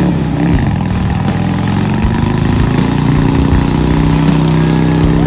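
Vehicle engine running at high, fairly steady revs during a tyre burnout.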